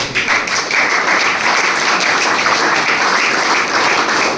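Applause from a roomful of people: dense, steady clapping.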